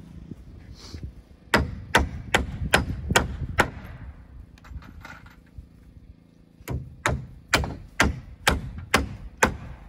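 Hammer driving nails into wood framing: two runs of sharp blows, six and then seven, about two to three a second, with a pause of about three seconds between them.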